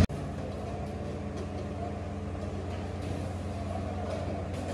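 Steady low mechanical hum, with a few faint clinks of ceramic serving bowls being set down and stacked.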